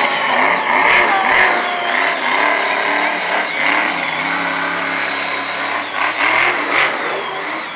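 Monster truck's supercharged V8 engine revving up and down as the truck drives over dirt jumps, with voices over it.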